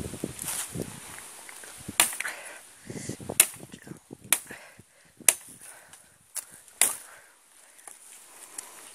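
Old machete hacking through brush and branches: about six sharp chops at uneven intervals, with leaves and twigs rustling between them.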